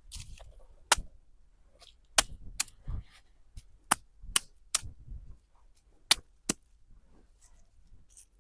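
A series of sharp, short knocks, about ten strikes at uneven intervals.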